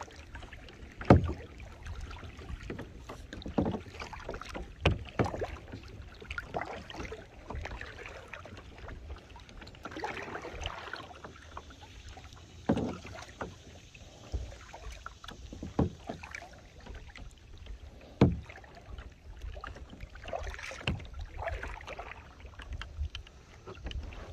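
Kayak paddling: the paddle blades dip and splash in the water, with occasional sharp knocks every few seconds.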